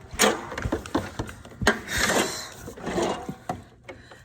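Scattered knocks, clicks and rustling as parts and tools are handled.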